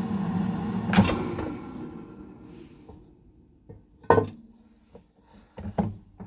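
Cosori Dual Blaze air fryer's fan running with a steady hum, then a click about a second in, after which it winds down and goes quiet. A few sharp knocks follow in the second half.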